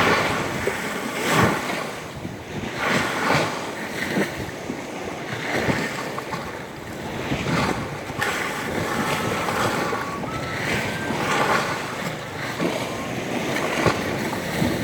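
Rough sea: waves surging and splashing again and again, with wind buffeting the microphone.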